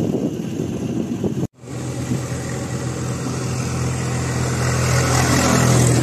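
Wind rumble cut short by a brief dropout about one and a half seconds in. Then a tractor's diesel engine hums steadily, growing louder as the tractor and its trailer are closed in on and passed.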